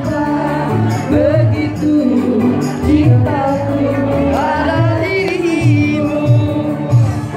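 Women singing into microphones over amplified backing music with a steady beat.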